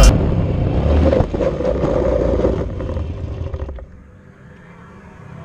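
A motor vehicle engine running and revving, then dropping away to a faint background about four seconds in.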